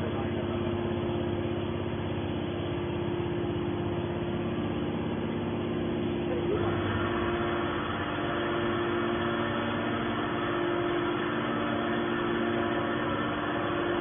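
Hydraulic scrap metal baler's power unit running steadily, a constant motor-and-pump hum with a whining tone. About halfway through, the note changes and a higher whine comes in.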